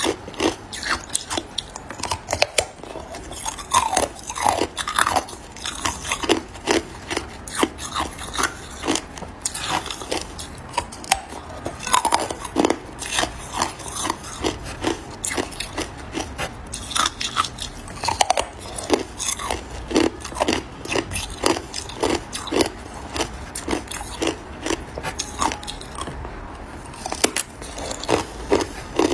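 A person biting and chewing a chunk of hard, clear ice: an irregular, rapid run of sharp cracks and crunches as pieces break off and are crushed between the teeth.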